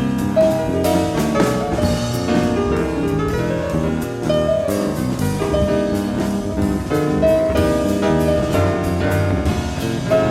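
Jazz piano trio playing live: piano over bass and drums, heard off a cassette recording of an FM radio broadcast.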